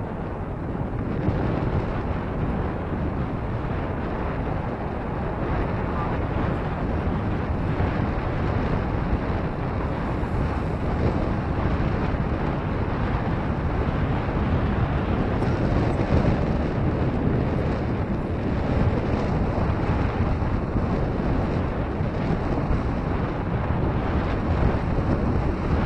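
Wind buffeting the microphone on the open-air top deck of a descending cable car: a steady, heavy rushing noise, strongest in the low range.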